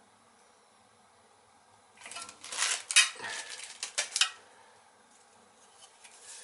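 Small metal clinks and rattles from handling tools and wiring parts while jumpers are fitted to a boiler control's terminals, in a burst of about two seconds with two sharp clicks, after a quiet start.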